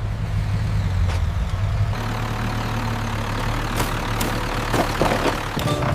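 A vehicle engine idling with a steady low hum, turning to a rougher, noisier rumble about two seconds in, with a few faint clicks near the end.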